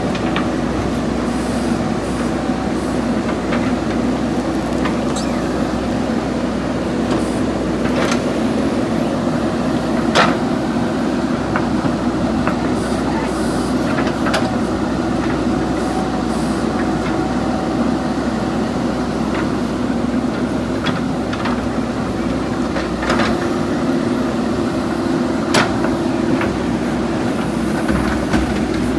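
JCB backhoe loader's diesel engine running steadily under work, with a few sharp knocks, loudest about ten seconds in and again near the end.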